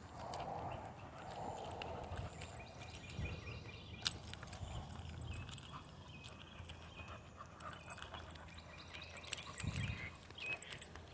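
Quiet footsteps of a person and a dog walking on a paved road, with scattered small clicks and faint jingles from the dog's collar and leash clip.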